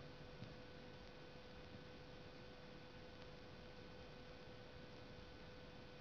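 Near silence: a steady electrical hum and hiss, with one faint click about half a second in.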